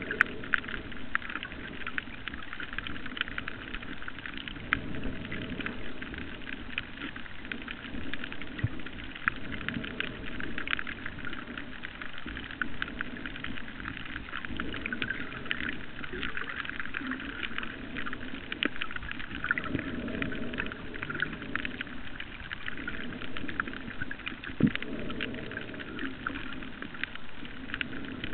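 Underwater reef ambience: a dense, constant crackle of tiny clicks, typical of snapping shrimp, over a low rushing noise that swells and fades every four to five seconds.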